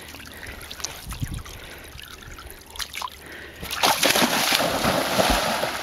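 Spanish water dog wading into shallow reservoir water, its legs splashing. The splashing is soft and scattered at first, then grows louder and continuous about two-thirds of the way in as the dog pushes out into deeper water.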